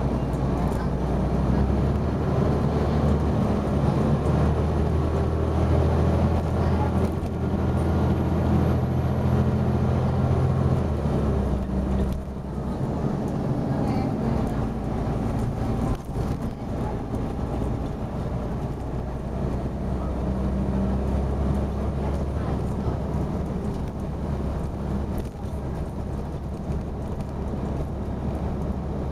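Dennis Arrow double-decker bus's diesel engine thrashing hard under load, heard from inside the bus. About twelve seconds in the engine note drops and it runs more lightly.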